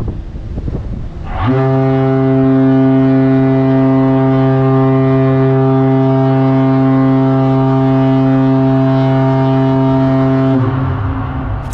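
Ship's horn, on its newly installed motor, sounding one long steady blast of about nine seconds on a single deep note, as a test; it starts about a second and a half in and cuts off near the end.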